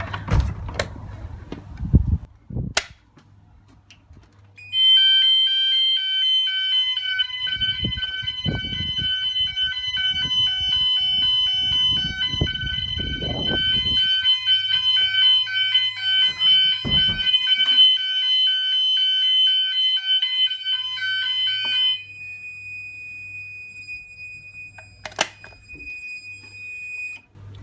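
Gent fire alarm sounders set off by a pulled manual call point: a loud, steady, high-pitched alarm tone with a rapid pulsing pattern. It starts about five seconds in, after a few knocks, and runs until about 22 seconds in. After it stops, a quieter single steady tone carries on for about five seconds and then cuts off.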